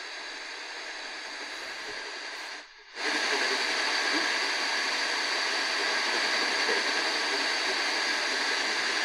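Static hiss from an Eton FR-250 portable radio's speaker on the AM medium wave band, tuned near the top of the dial where a distant station barely comes through. The hiss drops out for a moment just under three seconds in, then comes back louder and steady.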